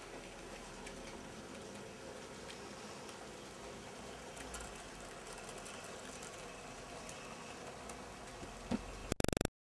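Z scale model freight train running along the track: a faint steady whirr with scattered light clicks. Near the end a short thump, then a brief loud rapid stutter, and the sound cuts off.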